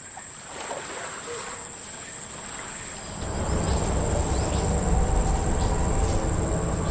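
A steady high-pitched insect whine throughout. From about three seconds in, a louder low steady boat-engine hum comes in and grows.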